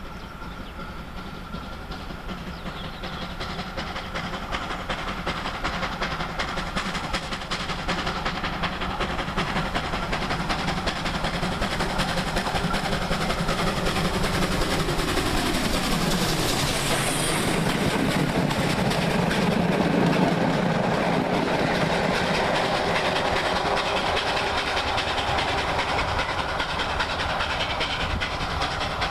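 Ol49 steam locomotive hauling a passenger train at speed, approaching and passing. It grows steadily louder, drops in pitch as it goes by about halfway through, then the carriages clatter over the rail joints.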